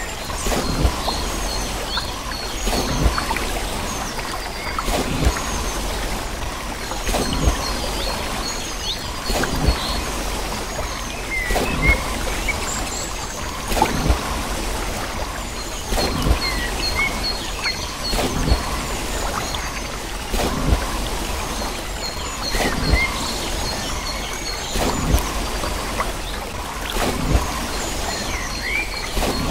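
Wooden waterwheel turning in a river, its paddles hitting the water with a thump about every two seconds over the steady sound of running water. Birds chirp throughout.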